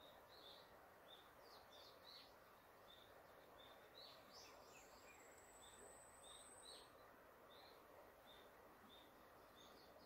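Faint forest birdsong: short chirps about twice a second, with a thin high trill for a couple of seconds around the middle, over the steady rush of river rapids.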